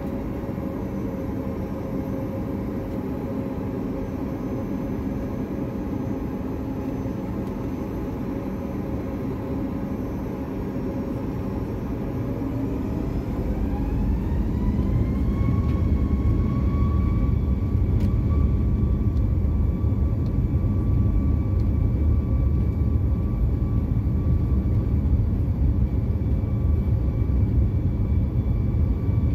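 Boeing 737 MAX 8's CFM LEAP-1B jet engines heard from inside the cabin: a steady whine over a low rumble, then about twelve seconds in the engines spool up to takeoff thrust. The whine rises to about double its pitch over a few seconds, and the rumble grows louder and holds as the takeoff roll gets under way.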